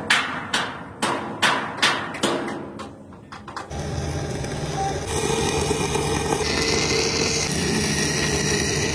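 Hammer blows on metal, about two a second, that fade over the first few seconds. Then a steady, loud mechanical noise with a hiss starts and runs until it cuts off suddenly at the end.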